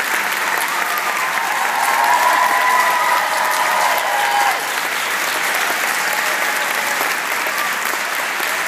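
Audience applauding steadily, with a few voices calling out in the crowd about one to four seconds in.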